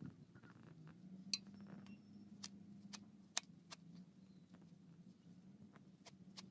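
A knife tapping against a metal tray as leafy greens are chopped on it: about six faint, sharp clicks at uneven intervals. A faint low hum runs underneath.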